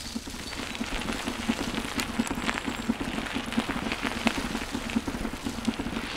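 Bicycle tyres rolling over a wooden boardwalk: a fast, uneven clatter of low knocks from the planks over a crackling hiss, with the odd sharper click.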